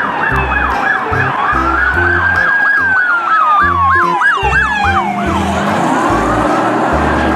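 Police car siren: a fast yelp of about four sweeps a second, with a slower wail rising and falling over it. Underneath runs background music with a steady bass beat.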